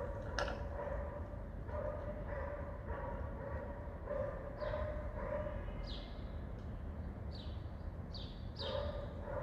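An animal's repeated short, high whining calls, each held at one pitch, with shorter high squeaks that fall in pitch in the second half, over a steady low hum.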